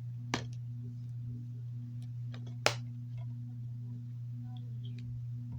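Two sharp clicks, about two seconds apart, from hands working at the security tape on a plastic DVD case. A steady low electrical hum runs underneath.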